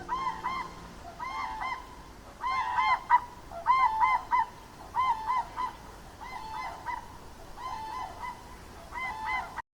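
Waterfowl calling with repeated honks in quick runs of two or three, about once a second, until the sound cuts off suddenly near the end.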